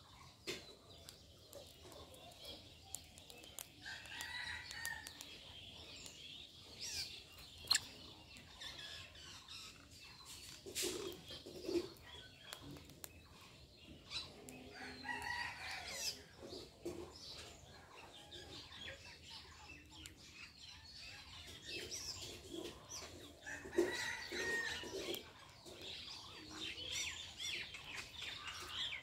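Birds calling outdoors: scattered chirps and a few longer, lower calls about four seconds in and again near the end. Light clicks and rustles run underneath.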